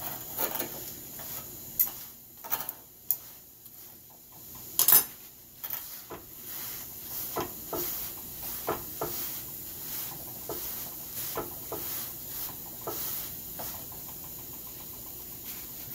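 Irregular knocks, taps and scrapes on a flat iron griddle as a paratha is worked with thin sticks and pressed with a cloth, with one sharp clatter about five seconds in.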